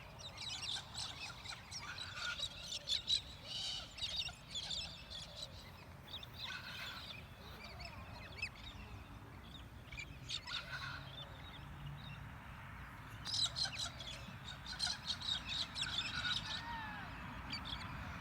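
Wild birds chirping in quick high bursts, busiest at the start and again about two-thirds of the way through.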